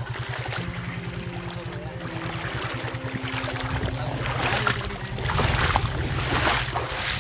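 An engine running with a fast, even low pulse, with wind noise on the microphone rising in gusts in the second half.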